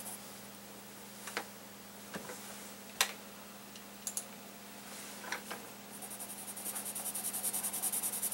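Pencil shading on sketchbook paper, a quick even scratching at about five strokes a second, starting about six seconds in. Before that, only a few light clicks and taps over a faint steady hum.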